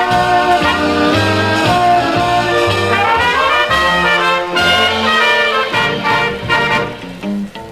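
Instrumental introduction of a 1968 Korean pop song: a band playing the melody over a rhythmic bass line, with no singing yet. It thins out and drops in level near the end.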